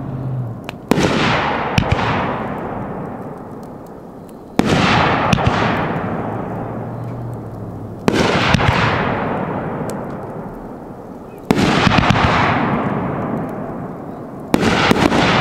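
SFX Fireworks Poseidon 9-shot firework cake firing aerial peony shells: five sudden loud bursts about three and a half seconds apart, each trailing off slowly over a few seconds.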